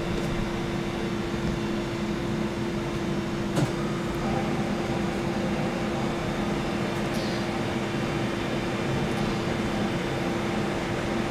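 Steady hum of kitchen ventilation with a constant low tone running under it, and a single sharp click about three and a half seconds in.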